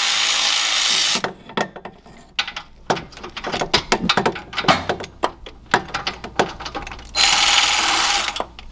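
Power ratchet spinning a loosened exhaust test-pipe bolt in two short runs, one for about the first second and another for about a second near the end. Irregular ratchet clicks and knocks fill the gap between them.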